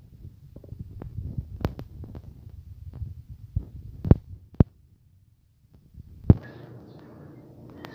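Scattered knocks and taps from fingers working a smartphone, picked up by the phone's own microphone over a low rumble. A louder knock comes about six seconds in, after a second of near silence.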